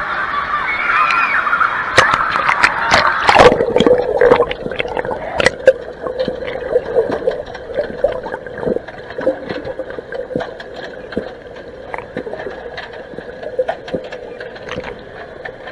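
Busy indoor pool din of many voices and splashing. About three seconds in, the camera plunges under the water with loud splashes. From then on the sound is muffled underwater sound: a steady hum with bubbly crackles and clicks.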